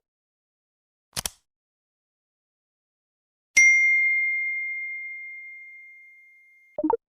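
A bright single-tone ding sound effect, struck about three and a half seconds in and ringing on one high note as it fades out over about three seconds. It comes after a short double click near the start, and a brief low pop follows near the end.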